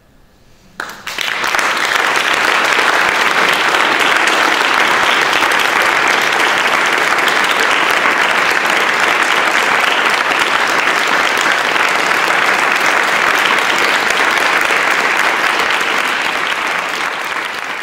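Audience applauding: after a moment of quiet, clapping breaks out suddenly about a second in, holds steady and dense, and begins to fade near the end.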